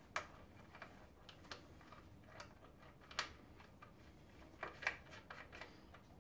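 Faint, scattered small metallic clicks and ticks as a brass brake two-way union, banjo bolt and crush washers are handled and screwed on by hand, with a little louder click about three seconds in.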